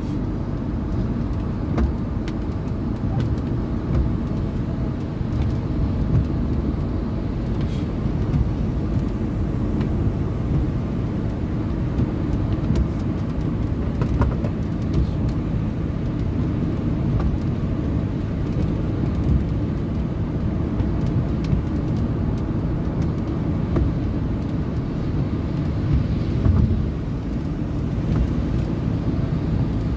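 Steady low rumble of a motor vehicle running, with a few faint scattered clicks.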